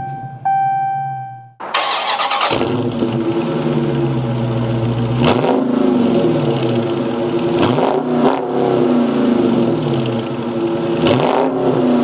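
A 2019 Dodge Charger Scat Pack's 6.4-litre Hemi V8 starting up: a steady high tone, then the engine fires with a loud flare about a second and a half in and settles into idle. It is revved three times, each rev rising and falling quickly.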